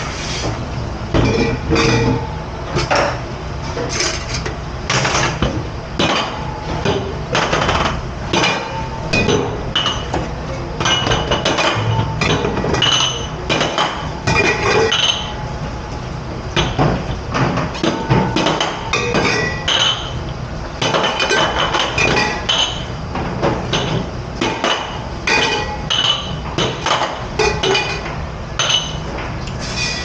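Dishes, pans and cutlery clattering and clinking at a commercial kitchen dish station, irregular knocks with short metallic and glassy rings, over a steady low rumble.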